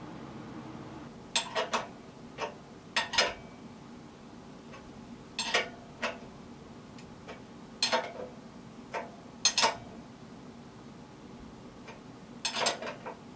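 Sharp metallic clinks and taps in irregular clusters, about a dozen in all, as metal parts of a motorcycle front wheel hub and axle are handled and fitted into the forks.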